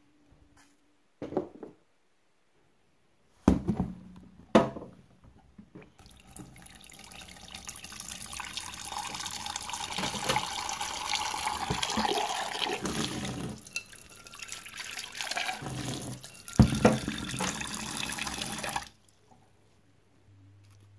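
Kitchen tap running into a saucepan in a stainless-steel sink for about thirteen seconds, then shut off. A couple of loud metal knocks of the pan come before the water starts, and another near the end.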